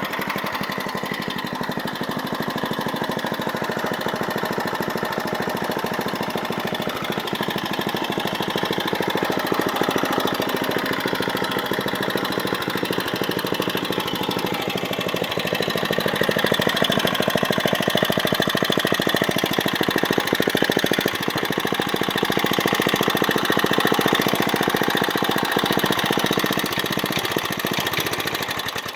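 1995 Briggs & Stratton small engine running with a rapid, even firing beat after seven years unstarted, a little louder for stretches past the halfway mark.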